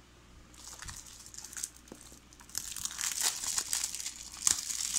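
Clear plastic shrink wrap being peeled and torn off a Blu-ray case, crinkling and crackling; it starts soft and gets louder and busier about halfway through.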